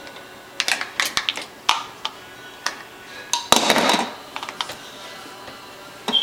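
Light clicks and knocks of small household objects being handled and knocked together by a toddler, with a louder rattling clatter about three and a half seconds in and a few small ticks after it.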